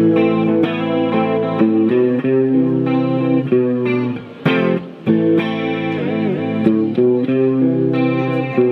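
Squier Stratocaster electric guitar playing an instrumental passage of ringing notes and chords, with a short break about halfway through.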